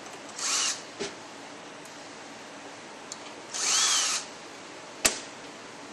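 Cordless drill-driver run in two short bursts, each spinning up and winding down, backing out the small bolts that hold an automatic transmission valve body's end cap. A sharp click about five seconds in.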